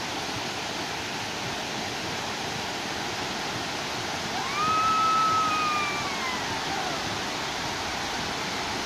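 Water pouring over a dam spillway and crashing into the pool below, a steady rush. About halfway through, a single long high tone rises, holds for about a second and slides back down over the water noise.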